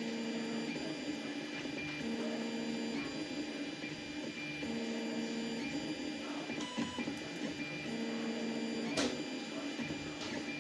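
Tevo Tornado 3D printer printing: its stepper motors whine in steady tones that switch on and off in stretches of about a second as the print head and bed move, over a steady fan hum. A single sharp click comes about nine seconds in.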